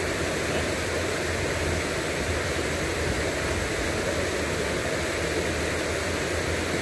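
Steady rush of river water pouring over a low concrete weir in whitewater rapids.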